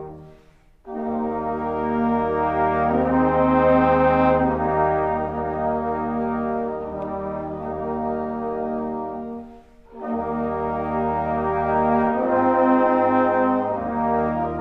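Brass band playing a slow hymn in sustained chords, with short pauses between phrases about a second in and again near ten seconds.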